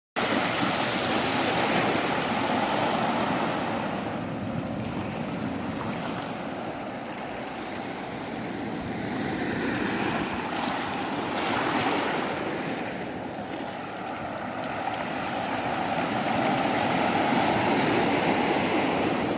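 Surf breaking and washing up a beach, a steady rush of water that swells and eases over several seconds.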